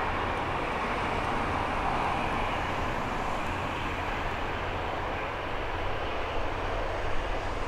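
Jet engines of a departing Airbus A350, Rolls-Royce Trent XWB turbofans at climb thrust, giving a steady roar that fades slightly as the aircraft climbs away. A couple of small brief bumps come near the end.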